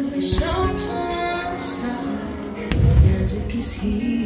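Fireworks show soundtrack music playing over loudspeakers, with a deep firework boom about three seconds in.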